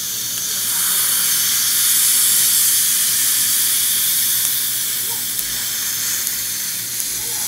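Dental saliva ejector sucking in the mouth with a steady hiss, with a couple of faint clicks near the end as debonding pliers pry at the braces.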